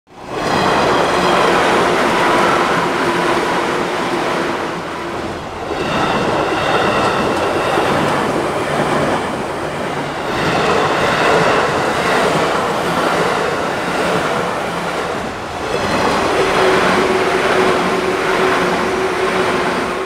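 Level-crossing warning bells ringing steadily while electric commuter trains run past, with wheels clattering over the rails. The sound changes abruptly three times, about every five seconds, as four short clips are cut together.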